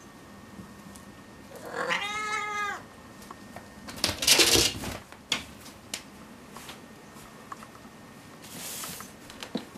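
Calico kitten gives one meow lasting about a second. About four seconds in there is a loud scuffle as it leaps at the wall, followed by a few light taps and a soft rustle near the end.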